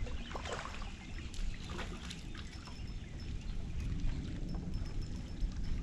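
Water lapping and trickling against the hull of a small fishing boat, with a few light knocks in the first couple of seconds.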